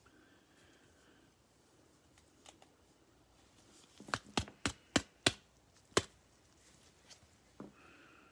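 Trading cards being handled, with a quick run of about six sharp clicks a little past the middle.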